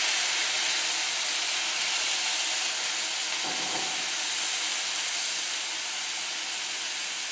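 Chicken broth poured from a carton into a hot skillet, hissing and sizzling into steam as it hits the pan, easing off slowly.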